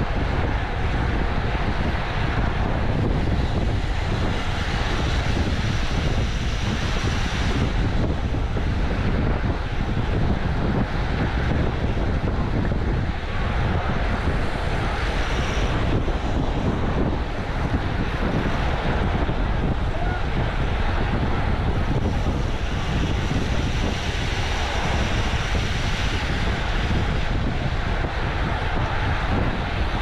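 Steady wind noise buffeting the microphone of a cyclist's action camera at riding speed on a windy road ride.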